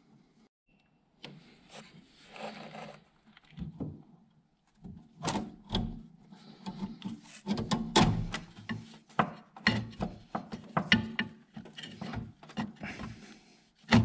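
Hand tool working on a car's steering shaft coupling: after a quiet start with a brief rustle, irregular metallic clicks, clinks, knocks and scrapes come from about five seconds in, loudest around eight seconds.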